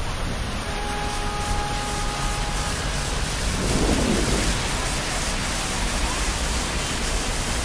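Water jets of a plaza fountain splashing, a steady rushing hiss of falling water, over a low rumble of city traffic.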